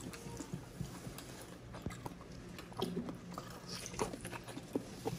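Close-miked eating sounds: soft chewing, biting and lip-smacking, as scattered faint clicks.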